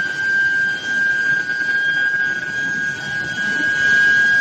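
Induction billet reheating furnace running, its coil giving a steady high-pitched whine over a rough machinery hum.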